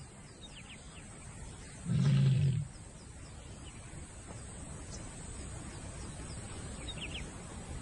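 A lioness gives one short, low call about two seconds in, the call of a female in heat summoning males to mate.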